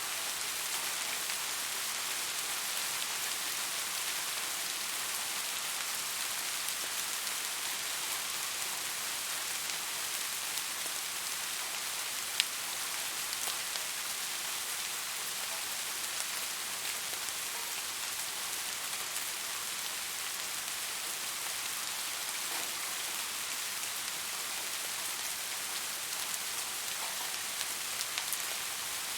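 Steady rain falling, an even hiss of drops on surfaces. A single sharp click stands out about twelve seconds in.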